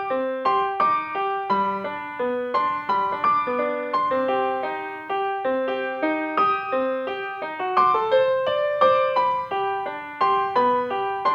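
Background music: a gentle keyboard melody of single struck notes that ring and fade, played at a steady, even pace.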